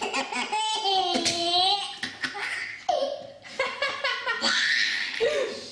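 A baby laughing hard in several bursts of belly laughter, set off by someone's sneezing.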